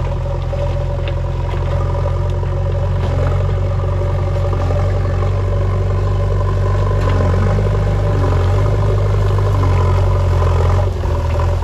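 JCB backhoe loader's diesel engine running steadily, with scattered clattering of rock and gravel.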